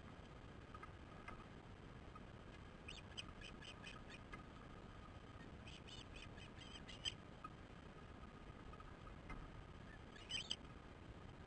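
Faint series of short, high chirps from ospreys at the nest, coming in three quick bouts over a steady low background hiss.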